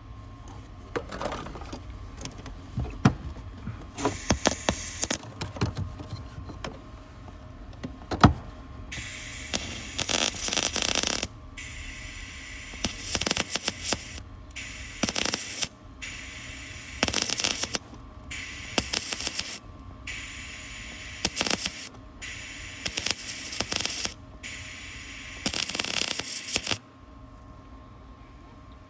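Welding arc crackling in short bursts of about a second each, seven or eight times with short pauses between, as the frame is welded bead by bead. Before the bursts begin there are scattered knocks and scrapes of metal being handled.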